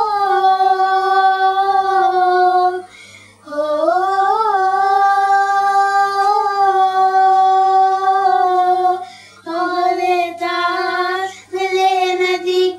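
Children singing a Hindi song unaccompanied, drawing out long held vowel notes of several seconds each, with short pauses for breath about three seconds in and about nine seconds in.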